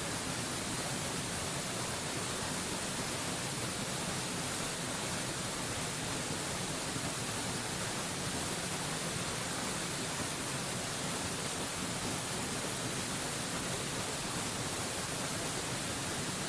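Mountain waterfall: a steady, unbroken rush of falling water, an even hiss with a bright top that never changes.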